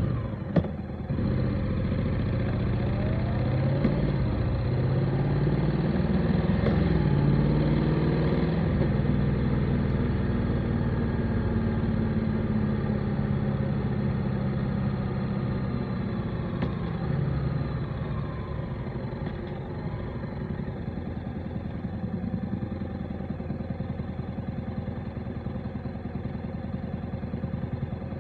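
Motorcycle engine running under way, its pitch rising and falling with the revs during the first several seconds, then settling to a steadier, slightly quieter run. A sharp click sounds about half a second in.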